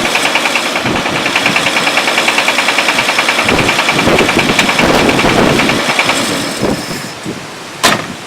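Car engine running with a fast, even rod knock from a worn-out connecting-rod bearing on a badly pitted crankshaft journal. The knock is getting worse. The sound fades away near the end, followed by a single sharp click.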